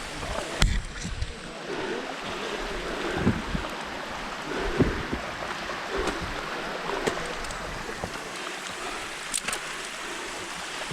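Rushing water of a mountain stream and waterfall, a steady hiss, with a few sharp knocks and bumps scattered through it.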